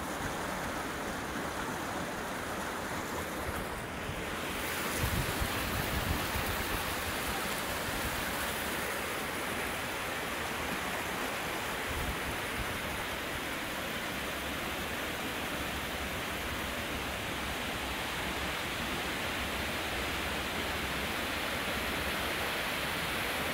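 Water rushing steadily through a concrete fish ladder, a continuous hiss that fills out about four seconds in. A few low bumps come soon after.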